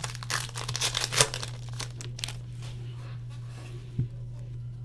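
Crinkling and rustling of trading-card pack wrappers and cards being handled, busiest in the first second and a half, with a soft thump about four seconds in. A steady low electrical hum runs underneath.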